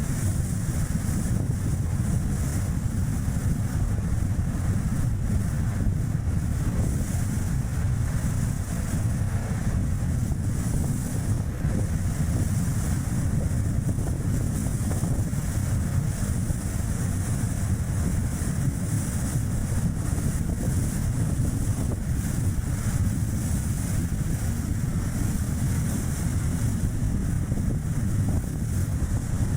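Strong wind rushing over the microphone with steady tyre and road noise from a Chevrolet Spark city car driving along; a deep, even rumble with a hiss on top and no let-up.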